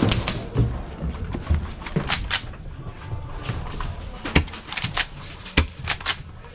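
Airsoft guns firing during close-quarters play: irregular sharp snaps and clicks, with a few louder cracks near the middle and toward the end.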